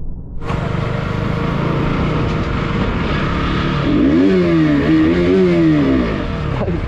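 KTM RC motorcycle engine running as the bike is ridden along a street. About four seconds in, the engine note rises and falls several times as it is revved up and down.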